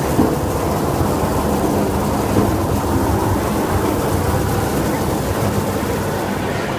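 Brush-type ginger washing machine running: rotating brush rollers churn and scrub ginger roots under water spray, giving a steady, even rumble with a low motor hum beneath it.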